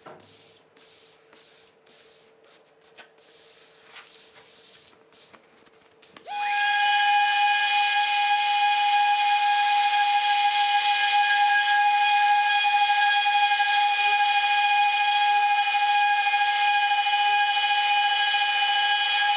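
A few seconds of faint handling clicks, then an electric orbital sander starts about six seconds in and runs steadily with an even whine and hiss.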